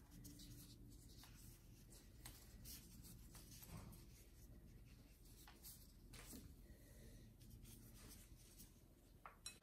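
Faint, scattered rustling and crinkling of disposable plastic gloves handling phyllo dough as a strip is rolled into a small baklava rosette, over near-silent room tone.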